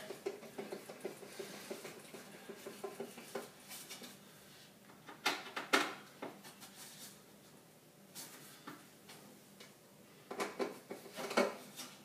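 Hand screwdriver turning self-tapping screws into a fridge's metal mounting frame: scattered small metallic clicks and scrapes, with louder clusters of clicks about five seconds in and again near the end.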